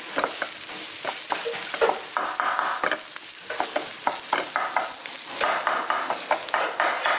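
Diced onion and carrot sizzling in hot oil in a pan, with a wooden spatula stirring them and scraping and knocking against the pan bottom many times.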